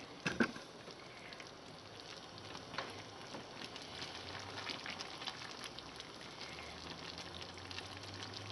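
A sausage, vegetable and tomato mixture sizzling quietly as it stews in a frying pan, with steady light crackling. A slotted spatula stirs through it, and there are a couple of sharper clicks at the start.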